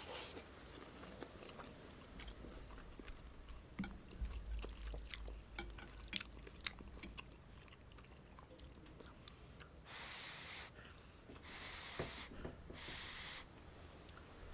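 A person eating a bowl of beef noodle soup up close: soft chewing with scattered light clicks of utensils, then three short breathy bursts near the end.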